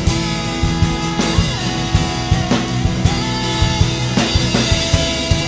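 Live worship band playing between sung lines: a rock drum kit keeping a steady beat with bass drum and snare, under sustained keyboard or guitar chords and a wavering melody line.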